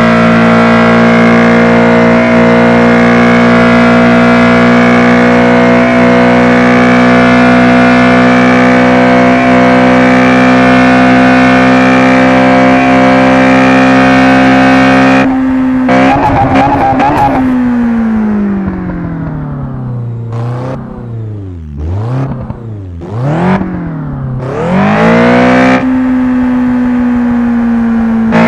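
A 1990 car's engine running at steady high revs for about fifteen seconds. It then changes abruptly: the revs fall away, dip and rise a few times, and climb back to the steady high pitch near the end.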